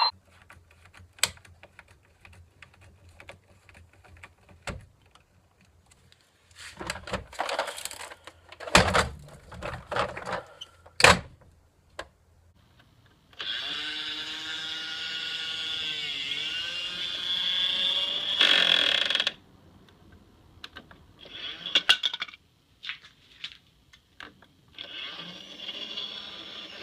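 Clicks and knocks of small plastic parts being handled and fitted, then a small electric motor whirs steadily for about six seconds, its pitch dipping briefly midway, and stops suddenly; a similar whir starts again near the end.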